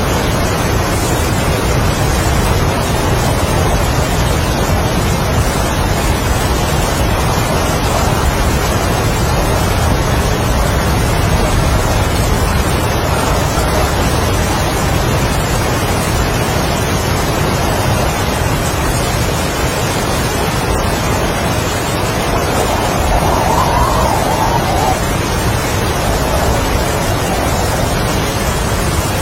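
Strong wind and heavy rain: a steady, dense rush of noise with a deep low end, and a brief swell of wind about three-quarters of the way through.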